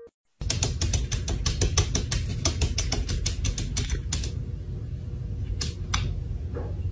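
Rapid clicking taps, about six a second, from a cat's claws pawing at a glass door, stopping about four seconds in, then two single clicks. A steady low rumble runs underneath.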